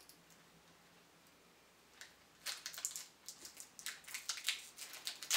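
Snack bar's plastic wrapper crinkling as it is worked open by hand, a rapid run of crackles starting about two seconds in.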